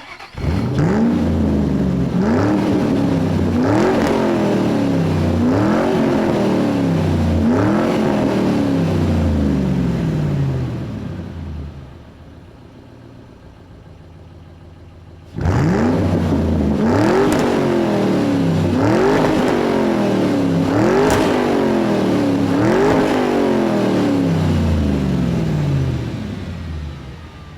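A tuned car engine revved again and again, its pitch climbing and falling back about every two seconds. Midway it drops to a quieter idle, then a second run of revs starts abruptly.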